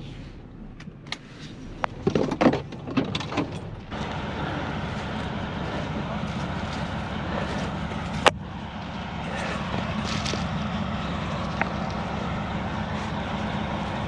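A few sharp clicks and knocks from a pickup truck's cab and door, then a steady vehicle engine running with a low hum and one sharp knock near the middle.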